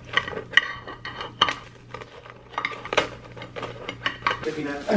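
Scissors cutting through a baked pizza and its crust: a string of irregular snips and crunches.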